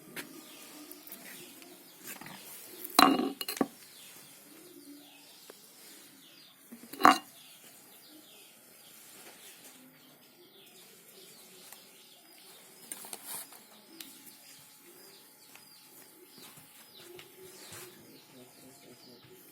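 Metal tools and parts clinking and knocking during hand repair work, with two loud sharp knocks about three and seven seconds in and lighter clinks later. Birds chirp faintly in the background.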